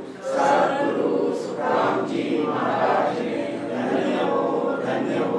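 Several voices chanting a devotional prayer together in unison, sustained and continuous.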